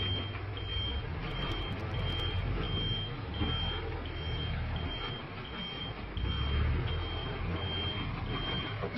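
A truck's reversing alarm beeping steadily, about three beeps every two seconds, over the low rumble of its running engine: the truck is in reverse gear.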